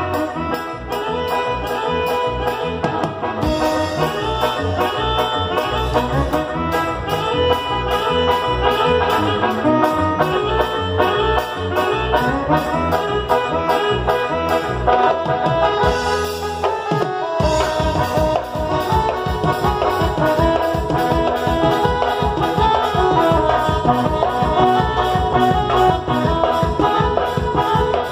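Brass band music, with trumpets and trombones playing over a steady bass beat. The bass drops out briefly about sixteen seconds in, then the beat comes back.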